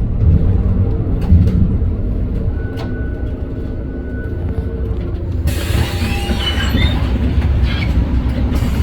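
Inside a 2021 Edison Motors Smart 110G CNG low-floor bus, a steady low rumble of its engine and running gear. About two-thirds of the way through, a hiss with scattered squeaks sets in.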